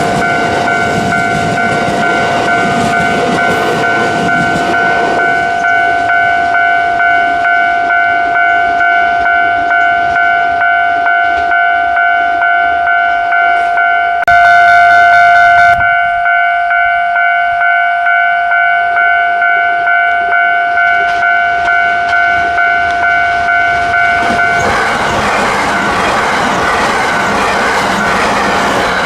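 Japanese railway level-crossing alarm bell ringing in a steady repeating clang while the crossing is closed. A train runs past at the start and fades by about five seconds in, a short, loud train horn blast sounds about halfway through, and another train comes rushing through near the end.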